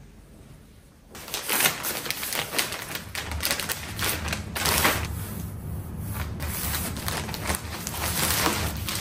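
Plastic packaging bags crinkling and rustling as bagged clothing is handled and lifted out of a cardboard box, starting about a second in.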